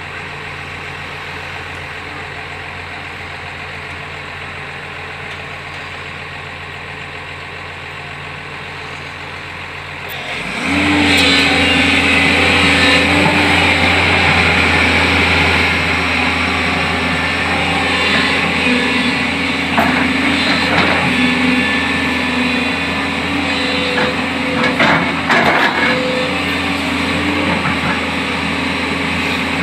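JCB backhoe loader's diesel engine running steadily, then revving up suddenly about ten seconds in and staying high with a steady whine. A few knocks come near the end.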